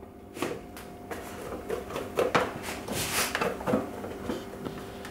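Piping bag of Italian meringue being squeezed and handled: a quick run of soft rustles and crinkles, thickest about two to three and a half seconds in, over a steady low hum.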